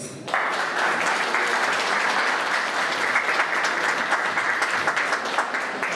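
Audience applauding, a dense patter of many hands clapping that begins just after the start and tapers off near the end.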